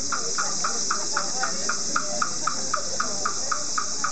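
A wooden fish drum (mokugyo) beaten at a steady, even pace of about four strokes a second, keeping time for low voices chanting a sutra. A steady high hiss runs underneath.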